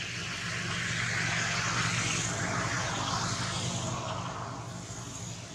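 A vehicle passing by: a rushing noise that swells to a peak about two seconds in and then fades away, over a steady low hum.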